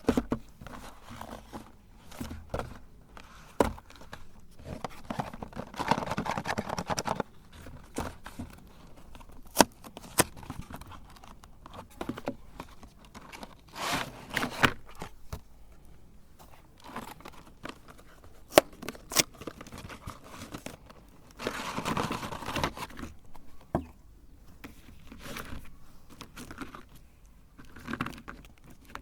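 Hand-handling noises: crinkling and tearing like packaging being opened, with scattered sharp clicks and knocks, and longer rustling spells about six, fourteen and twenty-two seconds in.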